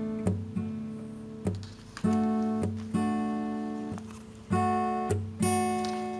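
Background music: an acoustic guitar strumming chords, each one ringing and fading before the next is struck.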